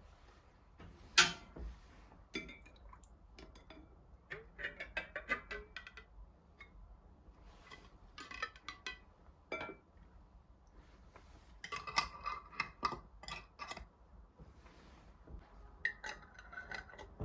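Kitchen dishes and utensils clinking and clattering in short, irregular clusters, with one sharper knock about a second in.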